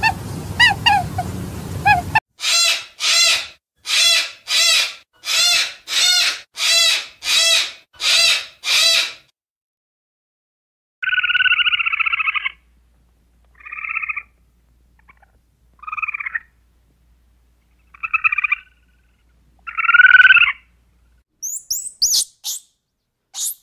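A run of animal calls. First about ten evenly spaced pitched calls, then after a short pause a squirrel's buzzy chirps in short bouts, then high, thin squeaking chirps from a squirrel monkey near the end.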